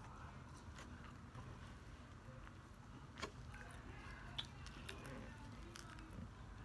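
Faint chewing and mouth sounds of a person eating a chicken sandwich, with a few sharp clicks, the loudest about three seconds in.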